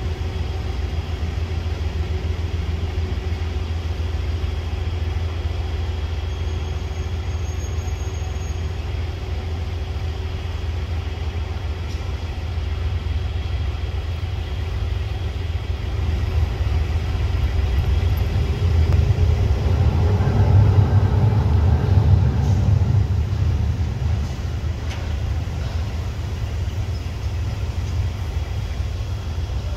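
Davenport diesel locomotive's engine running with a steady low rumble, which swells louder for a few seconds past the middle and then settles back.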